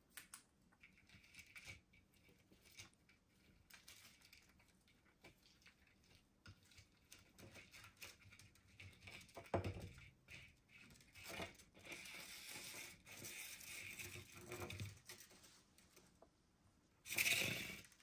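Green-cheeked conure foraging on a tabletop, making faint scattered taps, scratches and rustles among wooden toys and paper. There is a sharper knock about halfway through and a louder, short scraping rustle near the end.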